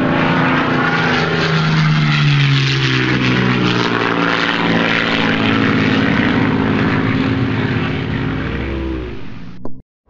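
A motor running, its pitch sliding down and then rising and falling, over a loud rushing noise; it cuts off suddenly near the end.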